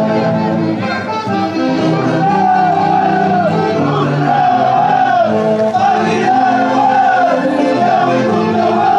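Live band music: held chords from a horn section, with a wavering lead melody coming in about two seconds in.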